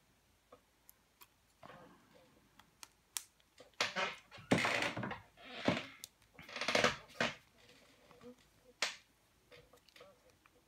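Hands handling a bare plastic tablet: scattered light clicks and several short scraping rubs, the loudest in the middle, with one sharp rub near the end.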